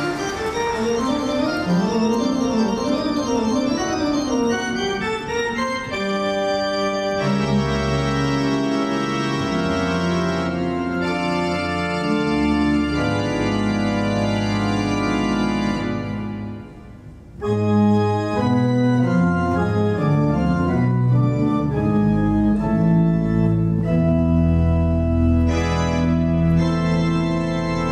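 Background organ music: quick running figures at first, then held chords from about seven seconds in, with a brief dip in volume a little past halfway.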